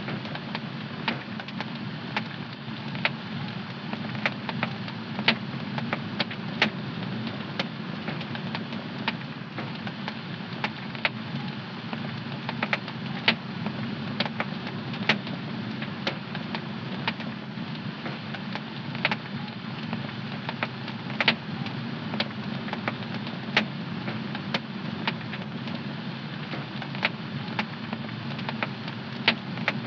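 Home fireplace fire crackling: irregular sharp pops and snaps, some louder than others, over a steady low rush of the burning fire.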